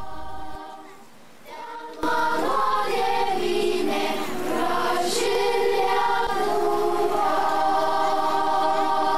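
Junior children's choir singing. The singing drops away briefly about half a second in and comes back in full about two seconds in.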